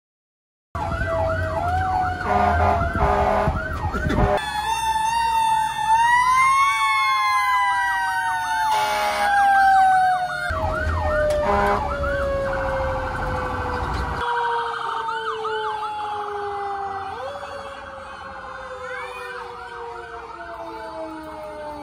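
Fire engine sirens: a fast, repeating yelp over slower wails that rise and then fall steadily. They begin about a second in and break off and resume abruptly a few times.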